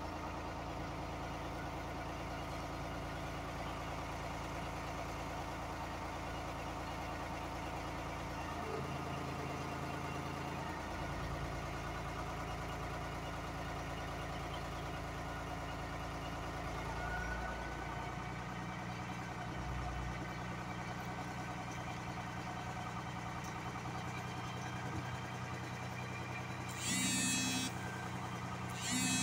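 US Jetting 4018 sewer jetter's engine and pump running steadily, its note shifting about 9 seconds in and again a little past halfway. A short high-pitched buzzing burst comes near the end.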